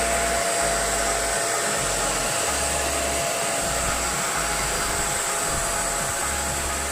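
Deerma vacuum cleaner running steadily: an even rush of air with a thin, steady high whine from the motor.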